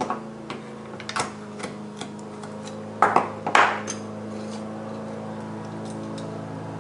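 A plastic spoon tapping and poking at the foil seal on a plastic bottle, then tearing through it with two loud crinkling scrapes about three seconds in.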